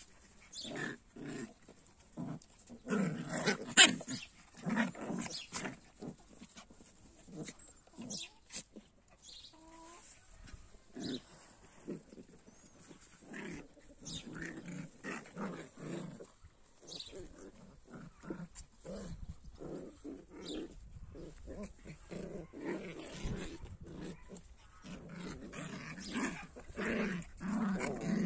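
Puppies making many short, irregular sounds, loudest in a cluster a few seconds in and again near the end.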